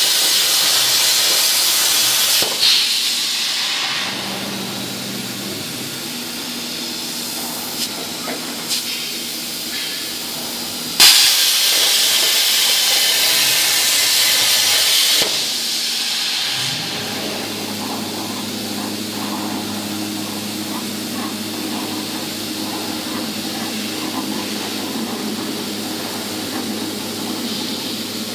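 CNC plasma cutting torch cutting steel plate: the plasma arc and its air jet give a loud, harsh hiss. The hiss drops back about 2 to 4 seconds in and starts loud again about 11 seconds in for some four seconds. After that a quieter, steady machine hum with a lighter hiss carries on.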